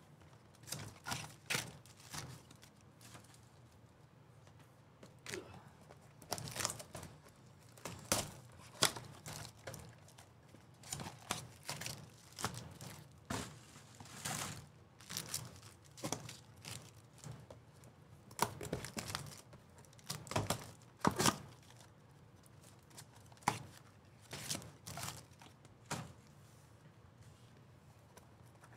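Trading card packs being torn open and their foil wrappers crinkled, with scattered sharp clicks and taps as cards and plastic holders are handled, in irregular bursts.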